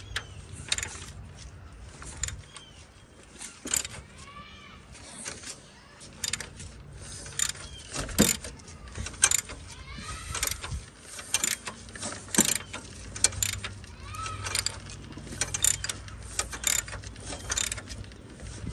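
Ratchet wrench on the crankshaft bolt of a Ford 2.3-litre four-cylinder, turning the engine over by hand to check the timing marks after a timing belt change: irregular metallic clicks and clanks of the ratchet and the turning engine.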